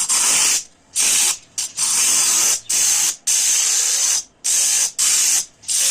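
A loud hissing noise in about eight short bursts, each starting and stopping abruptly.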